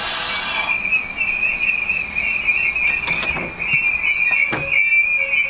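Test train with Network Rail driving trailer 9708 rolling slowly past with a steady, high metallic wheel squeal that wavers in pitch. A hiss cuts off about half a second in, and a couple of knocks come partway through.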